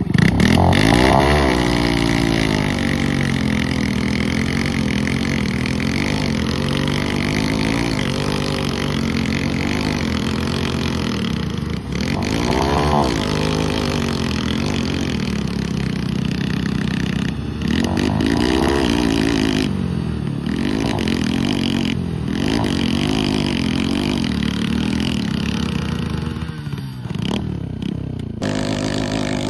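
Two modified Hero Splendor and Hero HF Deluxe single-cylinder motorcycle engines revving hard again and again under load, rising and falling in pitch as the bikes strain against each other on a tow rope with their rear wheels spinning in loose dirt. The revs ease off near the end.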